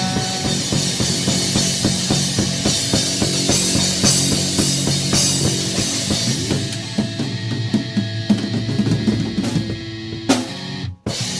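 A live band playing the instrumental ending of a song: a drum kit with cymbals beating busily under sustained amplified notes. A final hit about ten seconds in, then the music cuts off, with a note ringing out and fading.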